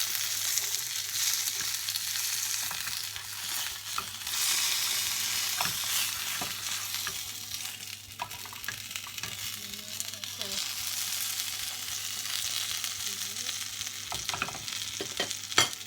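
Gyoza frying in a pan, sizzling and crackling steadily as the steaming water cooks off near the end of cooking. A sharp knock comes near the end.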